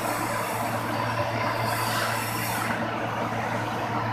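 GTAW (TIG) welding on steel pipe: a steady low hum with a broad hiss over it from the welding set and the running shop. The high part of the hiss thins out about three seconds in.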